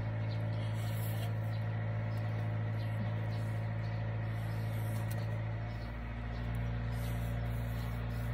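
Steady low machine hum with a constant pitch, like a motor or engine running without pause.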